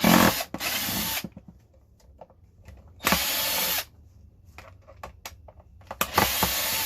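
Power drill-driver backing screws out of a plastic air mattress pump housing: four short runs of whirring, with small clicks and rattles of handling between them.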